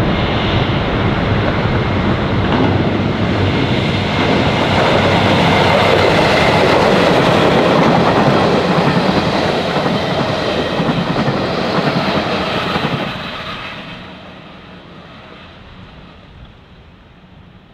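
Metro Trains Melbourne Comeng electric suburban train passing close by on the track. It is loud through the pass and fades away quickly about 13 seconds in as the train moves off.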